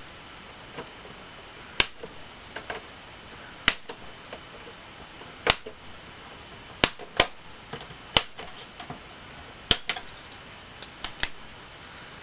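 Plastic case clips of an Xbox 360 snapping loose one after another as a pocket knife pries them open: about eight sharp pops a second or two apart, with fainter clicks of the blade and plastic between.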